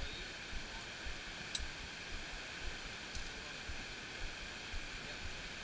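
River rapids rushing steadily through a rock gorge, with irregular low thumps throughout and one sharp click about one and a half seconds in.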